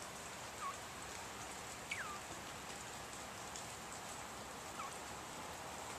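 Steady rain hiss, with three short, soft whistled notes from a male northern bobwhite quail, each sliding downward in pitch: the bird's quiet "blup" calls.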